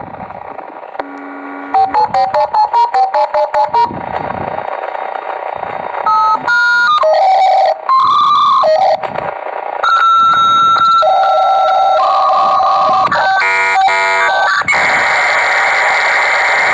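Dial-up modem connecting. A quick run of about ten dialing tones is followed by a sequence of beeping and warbling handshake tones, then a steady loud hiss of static as the modems negotiate the line.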